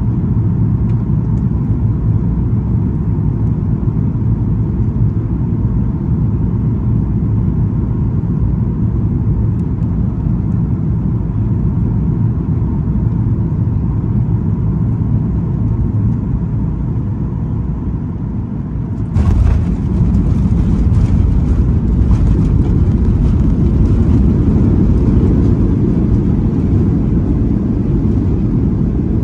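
Cabin noise of a Boeing 737-800 landing: a steady low rumble of engines and airflow on short final, then about nineteen seconds in the touchdown comes with a sudden jump to a louder, rushing noise as the spoilers deploy and the jet decelerates down the runway.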